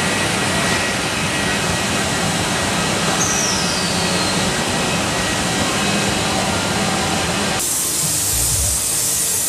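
CNC router spindle cutting through a wooden panel: a loud, steady mix of motor hum and cutting noise, with a short falling whine about three seconds in. Near the end the sound switches abruptly to a brighter hiss.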